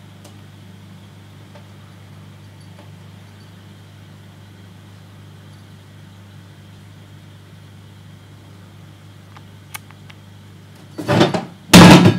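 Steady low hum of aquarium equipment with a faint high tone above it. Near the end there is a loud clattering crash as a toy fish is knocked off the top of the tank.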